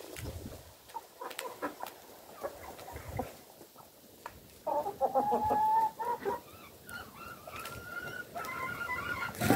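A flock of hens and roosters clucking and calling. Soft clucks and short clicks come first, then a longer drawn-out call a little past halfway and more calls building near the end.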